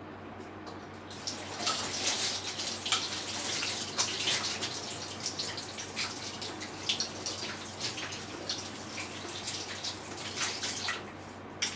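Water running from a tap and splashing, starting about a second in, with many small irregular spatters.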